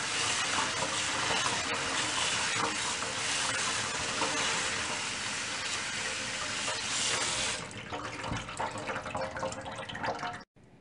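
Water running or being poured in a steady rush, stopping abruptly about three quarters of the way through; quieter scattered noise follows.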